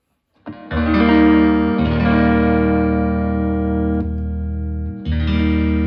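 Squier Affinity Stratocaster tuned down a half step, played through a Behringer TO800 Vintage Tube Overdrive pedal with every knob at 12 o'clock into a loud clean solid-state amp: chords struck three times and left to ring, with overdrive added to the clean tone.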